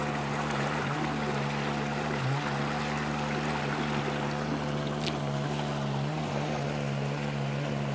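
A motor running steadily with a constant low hum, its pitch unchanging.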